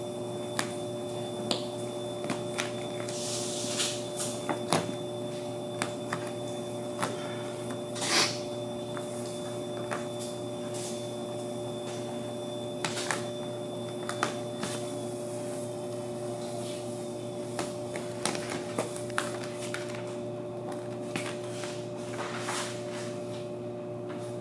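Thick (20 mil) clear protective film crackling and crinkling as it is peeled off a car's door and rocker panel and bunched in the hands, in irregular sharp crackles with a few louder clusters, over a steady hum.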